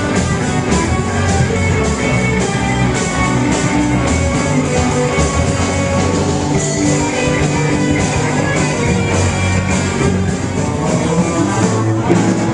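Live band playing rock music, with electric guitar and keyboard.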